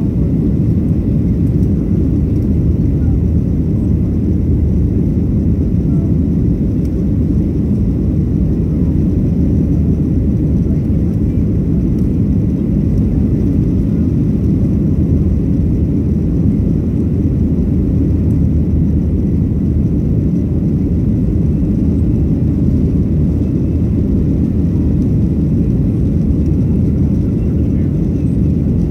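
Boeing 737-700 climbing out just after takeoff, heard inside the cabin: its CFM56 jet engines at climb thrust make a steady low rumble that does not change.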